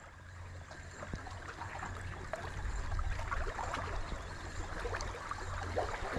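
Sea water washing and gurgling, gradually getting louder, with small scattered splashes.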